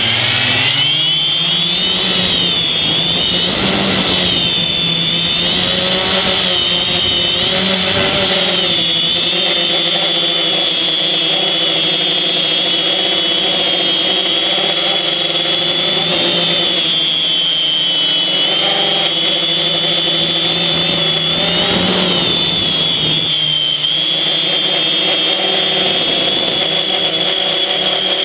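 FPV quadcopter's electric motors and propellers, heard from the camera on the copter itself. The whine rises in pitch over the first couple of seconds as it lifts off, then runs steadily, its pitch wavering up and down with the throttle as it flies.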